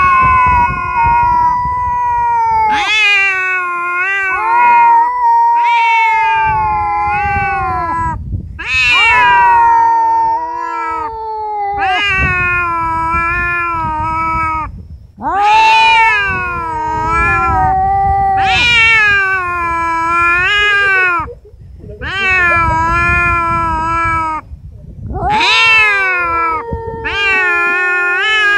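Domestic cats caterwauling: long, loud, drawn-out yowls one after another, about one every three seconds, each rising sharply and then held and sagging in pitch. These are the threat yowls of cats squaring up to fight.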